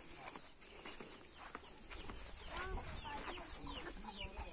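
Farmyard chickens clucking, with many quick, high, falling chirps building up from about halfway through.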